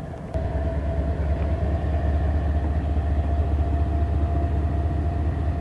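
Steady low vehicle rumble that comes in abruptly with a click less than half a second in, with a faint steady hum riding above it.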